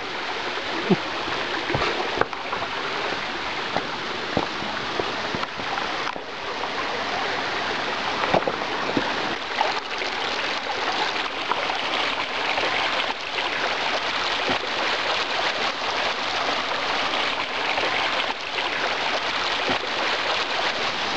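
Shallow rocky creek running over rocks and spilling down a small cascade, a steady rushing splash.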